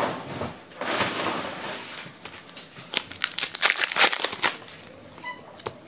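Foil wrapper of a 2011 Panini Totally Certified football card pack crinkling irregularly as it is handled and torn open.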